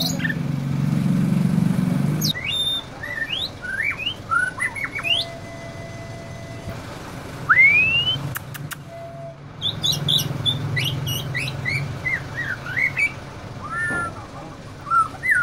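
Caged white-rumped shama (murai batu) singing: separate clear whistles, quick rising glides and a few notes held steady, in a song the title calls canary-style. A low rumble runs under the first two seconds and again in the second half.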